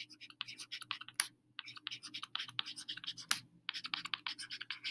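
Stylus writing on a tablet screen: a quick, irregular run of small scratches and taps as a word is handwritten, with a couple of sharper taps among them.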